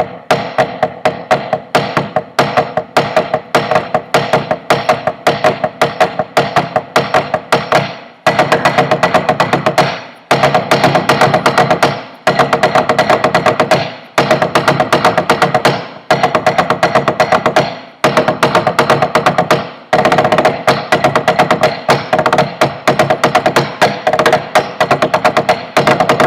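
Snare drum played with sticks in the inverted Swiss Army triplet rudiment (accent, flam, tap), in steady strokes for the first several seconds, then faster in short phrases about two seconds long with brief breaks between them.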